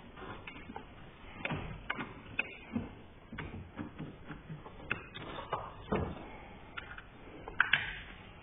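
Irregular clicks and knocks of hands working at a car battery's terminals: metal terminal clamps being handled and the red plastic positive-terminal cover flipped up, with the sharpest click near the end.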